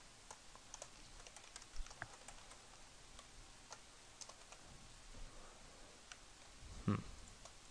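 Computer keyboard typing: soft, irregular keystrokes as a line of code is entered. One short, louder low thump comes near the end.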